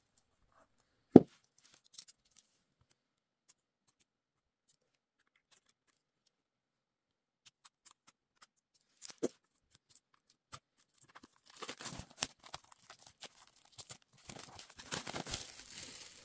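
A utility knife slitting the plastic shrink wrap on a CD album, then the wrap crinkling and tearing as it is pulled off, mostly in the last few seconds. One sharp thump about a second in.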